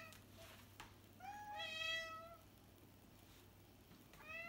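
House cats meowing for food: a long drawn-out meow about a second in and another starting near the end.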